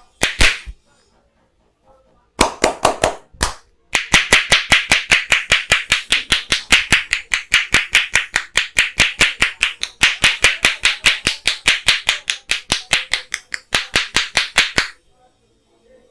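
Percussive head-massage strokes: a barber's hands slapping and clapping on the head, a few scattered strikes and then a fast, even rhythm of about five strikes a second that stops abruptly near the end.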